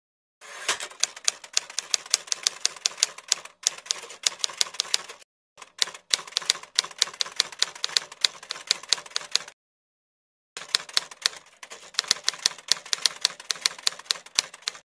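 Typewriter sound effect: rapid runs of keystroke clicks, the kind laid under title text being typed on letter by letter. The typing breaks off for a moment about five and a half seconds in and again for about a second around ten seconds in.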